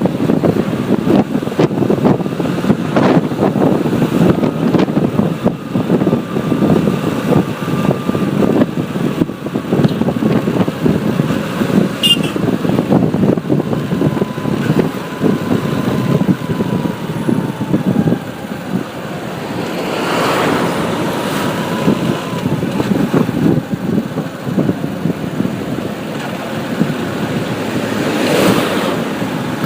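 Road traffic heard from a moving bike: the air rushing past buffets the microphone over a steady rumble of vehicles. Louder passing vehicles swell by about twenty seconds in and again near the end.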